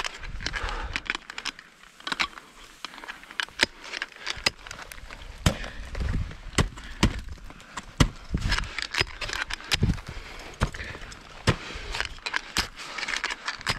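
Technical ice tools being planted into hard snow and kicked steps, irregular sharp knocks about one or two a second, with the tools' leash carabiners clinking.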